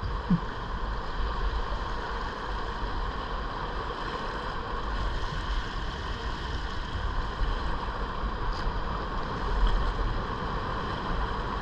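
River current rushing and swirling past a kayak's bow, a steady watery hiss, with gusts of wind rumbling on the microphone.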